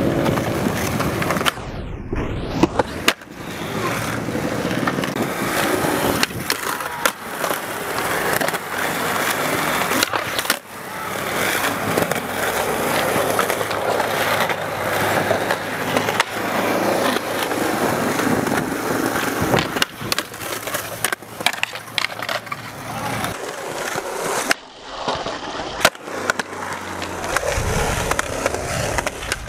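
Skateboard wheels rolling on concrete, with many sharp clacks as the board pops, hits ledges and lands.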